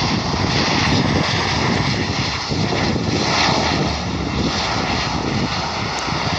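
De Havilland Canada Dash 8 turboprop airliner passing close by, a loud steady rush of propeller and engine noise with a thin steady whine running through it.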